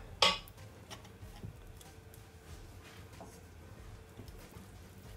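Fingers smearing butter across the bottom of a glass baking dish: light rubbing on the glass with a few faint, scattered ticks.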